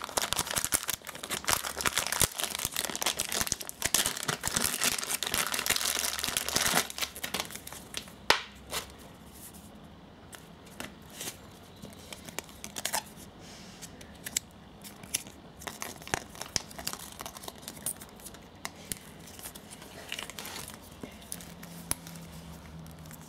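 Clear plastic bag crinkling and rustling as a wristwatch is unwrapped from it by hand, dense for about the first seven seconds. Then a sharp click, followed by quieter scattered clicks and taps as the watch and its strap are handled.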